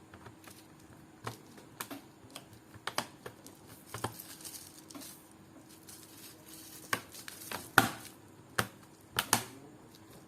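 Plastic bottom cover of an Asus VivoBook 14 laptop being pressed back on, its clips snapping into place in a series of irregular sharp clicks and taps. The loudest snaps come in the last few seconds.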